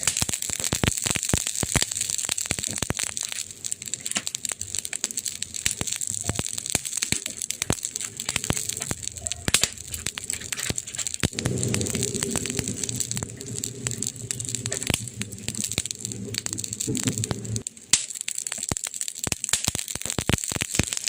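Wood fire burning in a fireplace, crackling and popping irregularly over a steady hiss, with a low rumble through a stretch in the middle.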